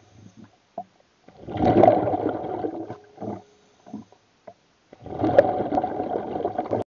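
Muffled underwater gurgling and rushing of water heard by a submerged camera, in two bursts about three and a half seconds apart, with faint bubbling between.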